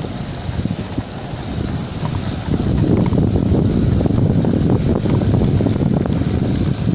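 Wind buffeting the microphone on an open ship's deck: a low, gusty noise that gets louder about two and a half seconds in.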